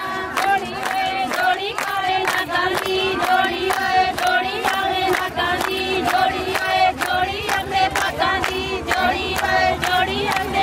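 A group of women singing a Punjabi folk song together in unison, over a steady sharp beat about two and a half times a second.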